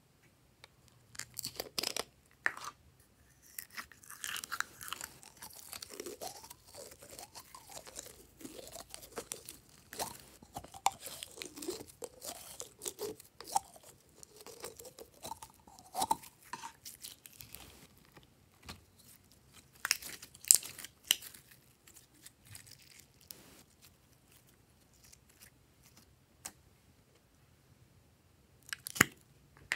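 Glossy glitter slime squeezed out of a soft plastic toy bottle: wet crackling and squelching, with squeaky little pitch glides through the middle, and sharp clicks and crinkles from the plastic containers being handled.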